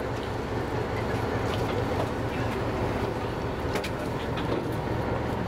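Passenger boat's engine running at idle alongside the quay: a steady low rumble, with a few short clicks as passengers step off over the gangway.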